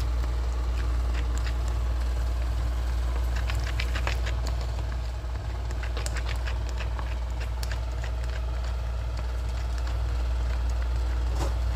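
Silicone spatula stirring thick flour batter in a plastic bowl: irregular light clicks and taps as it scrapes and beats the batter smooth, over a steady low hum.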